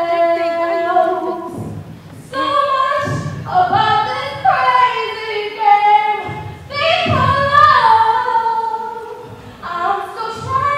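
A woman singing solo into a microphone, holding long notes and sliding through runs, with a short pause for breath about two seconds in.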